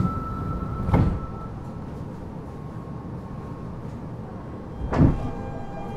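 Interior running sound of a Fukuoka City Subway Series 2000 car with its Hitachi GTO-VVVF traction inverter: a low rumble with a high inverter whine that fades out about a second and a half in. Two sharp thuds come about a second in and near the end, and a new set of wavering inverter tones starts just after the second thud.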